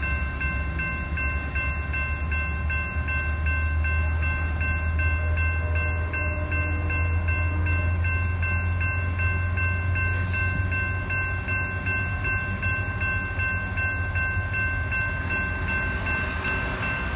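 Grade-crossing bell ringing steadily in a fast, even rhythm, over the low rumble of the train that has just passed. The bell stops right at the end.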